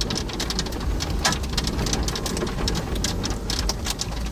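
Raindrops striking a vehicle during a storm: many separate sharp hits at an irregular pace over a low steady rumble.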